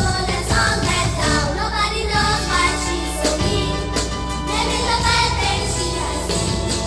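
Music with singing, the song's original score accompanying a dance number.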